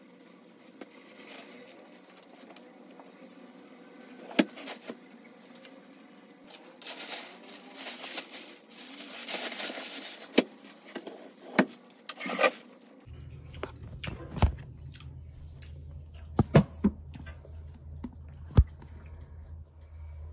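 Cloth rustling and handling noise with a few sharp knocks as clothes are sorted. After about 13 s this gives way to a steady low hum with a few sharp clicks.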